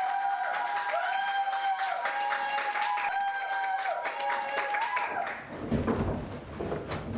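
A melody of held notes stepping up and down over steady rhythmic clapping, which stops about five seconds in; then irregular thuds and shuffling of many people moving about on a wooden stage.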